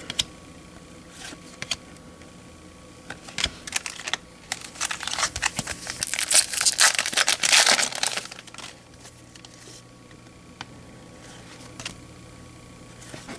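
A 2014 Bowman baseball card pack's wrapper crinkling and being torn open, densest for about four seconds in the middle, with a few light clicks of cards being handled before and after.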